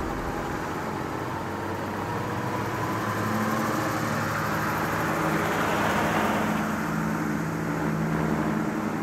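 A vintage car's engine running as the car drives slowly along the street. The sound grows a little louder in the middle, then eases off.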